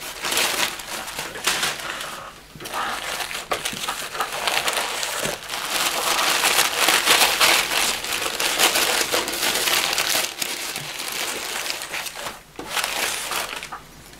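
Packing paper crumpling and rustling as it is handled and lifted out of a cardboard box, with short breaks about two and a half seconds in and near the end.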